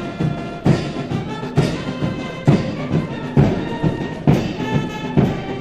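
Military brass band march music: held brass notes over a heavy bass-drum stroke about once a second, with lighter drum beats between.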